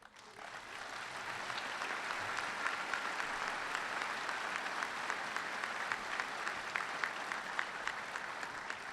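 Audience applauding. The clapping swells over the first second, holds steady, and tapers off near the end.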